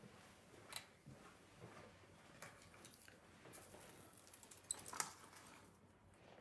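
Near silence in a small room, with a few faint clicks and light rustles of small objects being handled, two of the clicks close together near the end.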